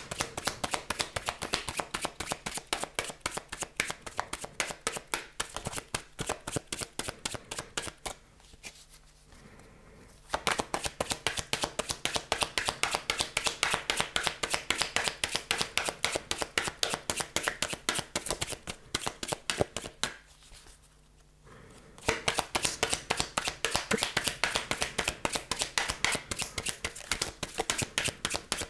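Oracle cards being shuffled by hand, a fast run of papery clicks and slaps, in three spells with two short pauses about eight and twenty seconds in.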